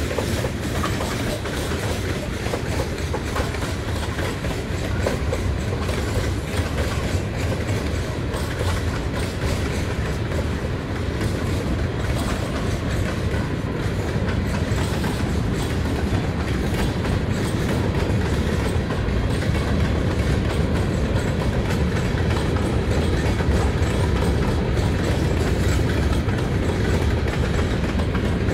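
Freight train cars rolling past at steady speed: a continuous low rumble with steel wheels clicking over the rail joints, a little louder in the second half.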